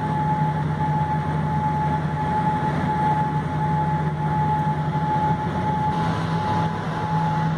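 Boeing 787-8 cabin noise on the ground before takeoff: a steady rush of engines at idle and cabin air, with a constant high-pitched whine and a low hum. The rushing grows slightly brighter about six seconds in as the aircraft rolls.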